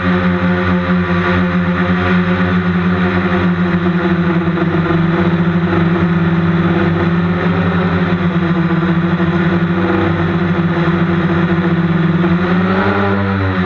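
Rotors and motors of a small remote-controlled camera helicopter droning steadily at close range, their pitch wavering up and down near the end as it manoeuvres.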